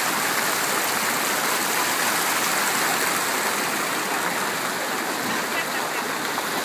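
Fountain water splashing steadily into its stone basin: a constant, even rushing hiss.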